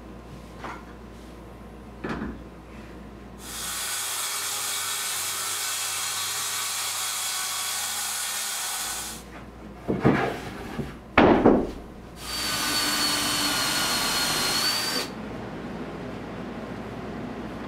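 Circular saw running and cutting through a sheet-goods panel along a clamped straight edge for about five seconds, then two loud knocks, then a few more seconds of power-tool noise with a thin high whine.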